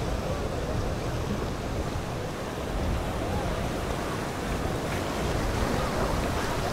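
Steady wind blowing across the microphone over choppy sea water lapping.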